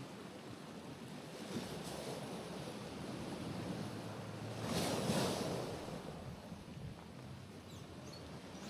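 Gentle sea waves washing onto a rocky shoreline, a steady wash of surf with one wave breaking louder about halfway through.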